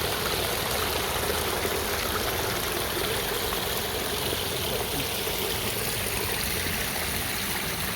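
Water running steadily over a natural-stone pondless waterfall, an even, unbroken splashing.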